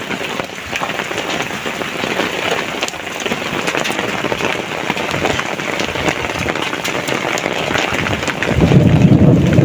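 Heavy rain falling: a dense, steady hiss full of separate drop ticks. Near the end a loud low rumble sets in over it.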